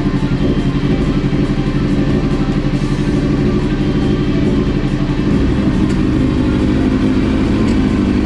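Kawasaki ZX-6R's inline-four engine running steadily at a constant speed, with a fast even pulse.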